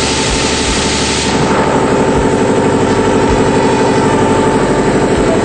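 Piston air compressor running with a fast, even chugging. A loud hiss lies over it and stops about a second in.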